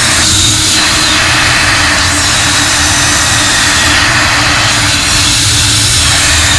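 Water jets from a PVC pipe rig spraying and splashing onto a soaked Persian rug: a steady, loud rushing hiss over a steady low machine hum.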